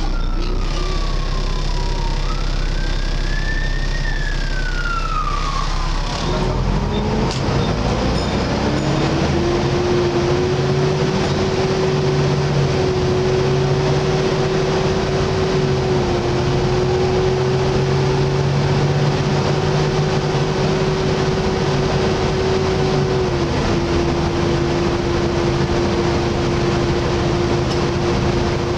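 A siren wails up and down for the first several seconds, then the Volvo B7TL bus pulls away and its loud, steady hoover-like whine takes over, holding one pitch and stepping down a little near the end.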